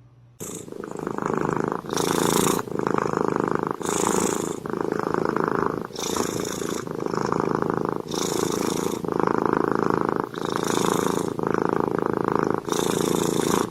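A cat purring loudly, close up, in a steady rhythm that swells and dips with each breath about every two seconds. It starts abruptly about half a second in.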